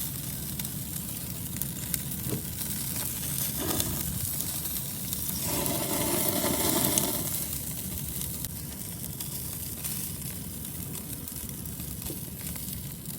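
Chicken sizzling as it grills, a steady hiss that swells briefly about halfway through.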